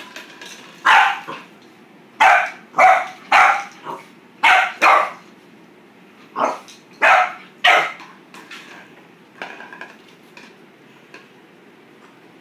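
Boxer puppy barking: nine short, sharp barks in quick groups over the first eight seconds, then only faint small sounds.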